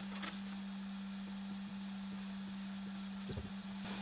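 Steady low electrical hum from the powered-up CNC machine's electronics at rest, with a faint knock about three and a half seconds in.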